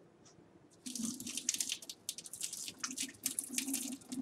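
Water running and splashing into a kitchen sink, starting suddenly about a second in and going on unevenly with many small splashes.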